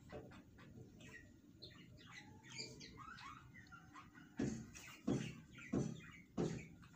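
Four dull knocks about two-thirds of a second apart in the second half, from the upturned plastic jelly mould being knocked against the ceramic plate to loosen the jelly cake. Faint bird chirps come before them.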